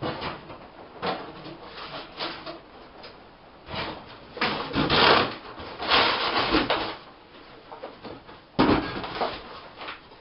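Things being handled and moved about: irregular rustling, scraping and knocking of objects, loudest in the middle, with one sharp knock near the end.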